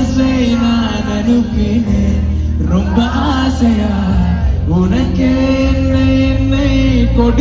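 Live band music through a stage PA, with a male vocalist singing long held notes that slide in pitch over a heavy bass.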